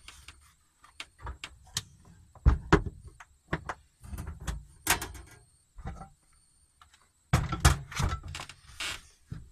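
Cookware being handled on a gas hob: an irregular run of knocks and metallic clatters as a metal tray of sliced mushrooms is moved and a frying pan is set down on the burner grate. The loudest clatter comes about seven to eight seconds in.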